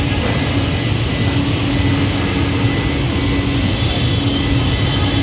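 CNC scroll saw running steadily, a continuous machine hum with a constant mid-pitched tone over a low rumble.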